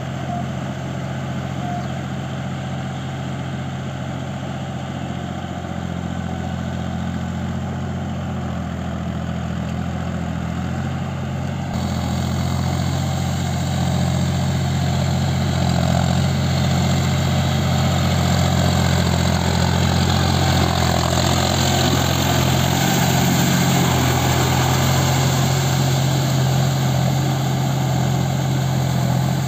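Farm tractor's diesel engine running steadily under load while it drags a rotary tiller through a flooded, muddy paddy field. The sound changes abruptly about twelve seconds in and is a little louder after that.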